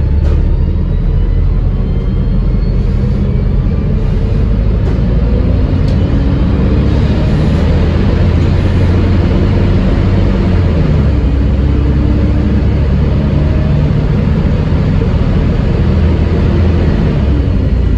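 Wright Eclipse Gemini double-decker bus with a Voith automatic gearbox running under way: a loud engine and transmission drone with the hoovering whine these buses are known for. Its pitch climbs slowly and drops back a few times as the gearbox changes up.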